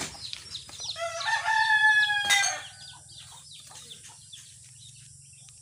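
A rooster crows once, a long pitched call starting about a second in and lasting about a second and a half. Hammer knocks on wood sound at the start and once near the end of the crow.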